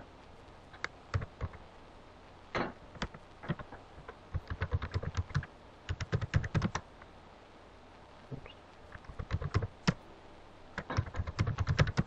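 Computer keyboard typing a login password, in several quick bursts of keystrokes with short pauses between them.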